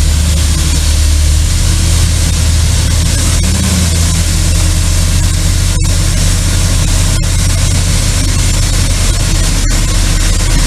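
Heavy diesel engine of a gravel delivery truck running steadily, a loud low hum that shifts slightly about a second and a half in.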